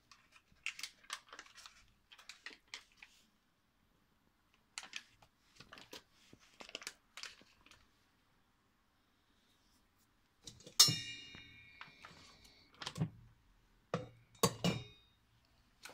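Crinkling and rustling of a butter block's paper wrapper being peeled open. About two-thirds of the way through, a sharp knock sets a stainless steel mixing bowl ringing briefly, and then come a few knocks of a hand mixer's beaters being set down against the bowl.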